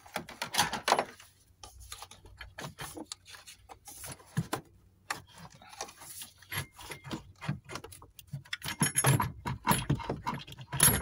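Plastic clicking, knocking and rubbing as the clips on a car's air filter housing are undone and the housing cover and intake duct are worked loose by hand, with the loudest clatter about half a second in and again near the end.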